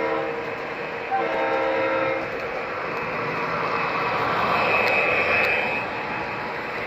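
O gauge model diesel locomotive's onboard sound system sounding its horn: the tail of one blast, then a second blast about a second long. The train then runs past close by with a steady rumble, loudest about five seconds in.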